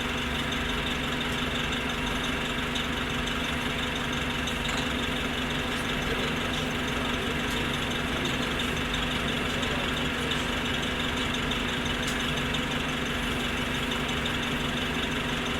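Orion V transit bus engine idling steadily, with an even hum that holds one pitch throughout.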